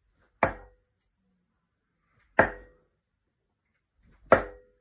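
Three darts striking a Winmau Blade sisal dartboard, one about every two seconds, each hit a sharp thud with a short ring after it.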